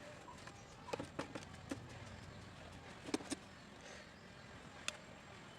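A few light, isolated clicks and taps of small tools and parts being handled during soldering work on a mosquito bat's wiring, over a faint steady hiss.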